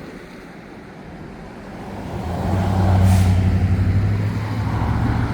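A vehicle engine running close by, a low steady hum that grows louder about two seconds in, with a short hiss about three seconds in.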